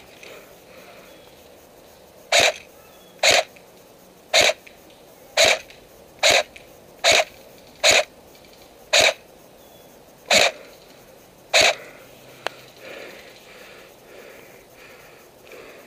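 Airsoft SVD sniper-rifle replica firing ten single shots, about one a second, each a short burst; a faint click follows a little after the last shot.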